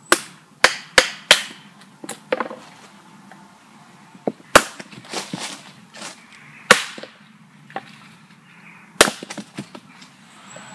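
A small axe chopping dry dead wood on a chopping block, splitting it into kindling. There is a quick run of four sharp chops in the first second and a half, then single chops every second or two, and a cluster of lighter taps near the end.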